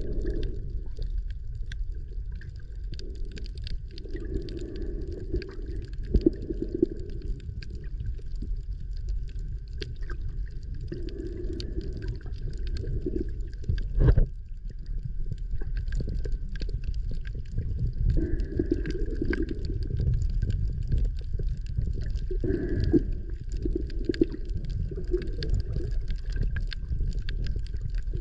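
Underwater sound picked up by an action camera's housing: a low rumble of moving water with swelling gurgles and scattered small clicks and crackles. One sharper knock comes about halfway through.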